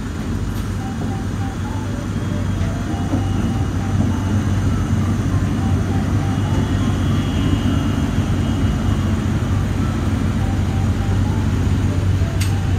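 JR Freight DD200 diesel-electric locomotive running on the freight line, its diesel engine humming steadily and getting louder over the first few seconds as it draws near. A couple of sharp metallic clicks come near the end.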